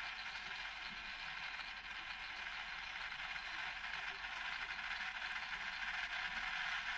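Small motor of a rotating display turntable running steadily, a fine whirring rattle of its gears, a little louder near the end.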